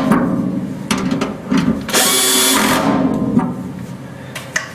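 Cordless drill-driver running in a short burst about two seconds in, driving a hinge screw into a metal wall cabinet, with a few light clicks near the end.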